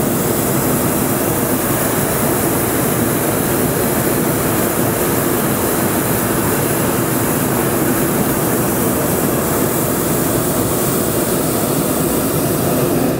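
Twin propane burners of a hot air balloon firing in one long, steady burn that heats the air in the envelope; it cuts off abruptly near the end.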